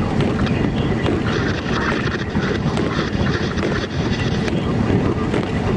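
Car driving on a snowy road, heard inside the cabin: a steady, loud mix of engine, tyre and road noise.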